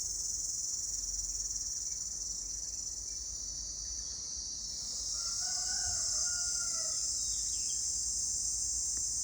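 Cicadas buzzing in a steady, high-pitched drone. About five seconds in, a rooster crows once over it, a call of about two seconds.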